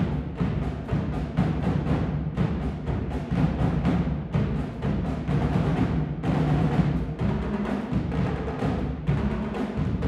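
Marching drumline of snare drums, a bass drum and tenor drums playing together in a fast, dense rhythm.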